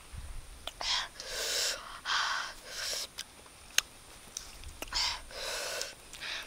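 A woman's sharp breaths sucked in and blown out through the mouth, six short hissing gasps in two bunches, the breathing of someone eating hot chili. Between them come a few sharp mouth clicks, the loudest just before four seconds in.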